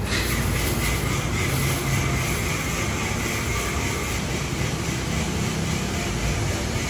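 Steady low background noise, even throughout, with no distinct events.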